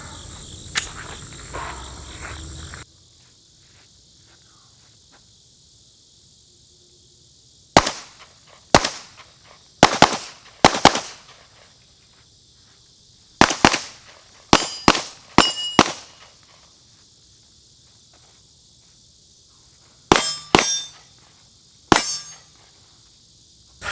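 Handgun shots, about sixteen in quick strings of two to five, beginning about eight seconds in, several followed by a short metallic ring.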